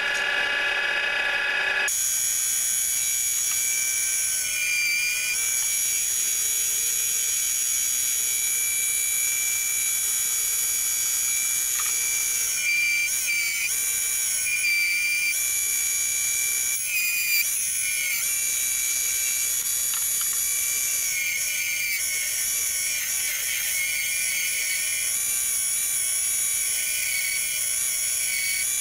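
Small benchtop wood lathe whining as its motor comes up to speed, then a hand-held turning tool cutting a spinning cedar handle blank: a steady high whine and hiss that shifts a little as the tool moves along the wood.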